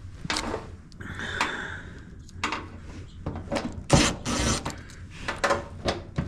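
Irregular knocks, clicks and scrapes of tools and sheet-metal washer parts being handled during disassembly, with a sharper knock about four seconds in.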